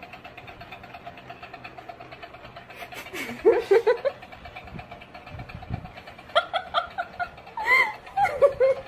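A small motor ticking steadily and faintly. A voice sounds briefly about three and a half seconds in, and there are short bursts of laughing in the second half.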